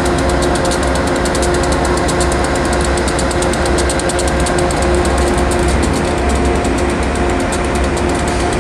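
Diesel locomotive engine running steadily, a deep rumble with a steady hum and a fast, regular clatter over it.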